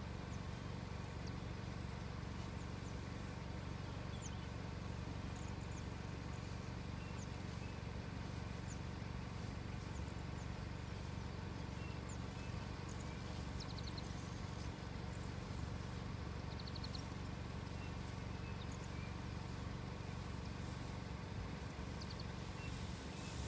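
Steady low background rumble, with short high bird chirps and a few quick trills scattered through.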